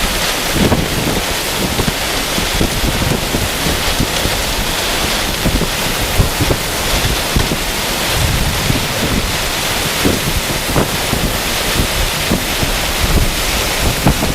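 Strong thunderstorm winds of a derecho: a loud, steady rush of noise with gusts buffeting the microphone in frequent low bumps.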